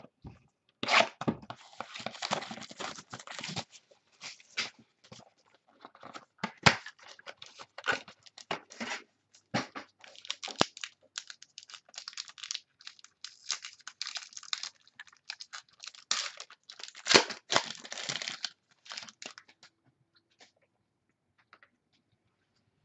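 Plastic wrapping on a sealed box of football trading cards being torn open and crinkled, in bursts of rustling and tearing with a few sharp snaps; it stops a few seconds before the end.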